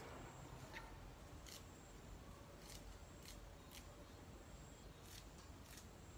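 Faint, crisp snaps of leafy vegetable stems being broken off by hand, about one every half second to second, over a quiet background with a faint steady high tone.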